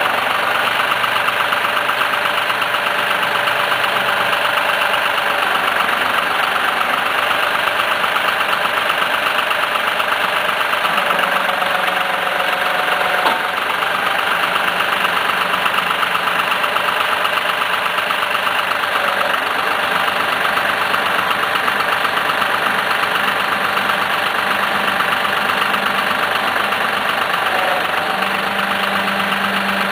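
John Deere tractor's diesel engine running steadily at an even speed, with no revving or load changes.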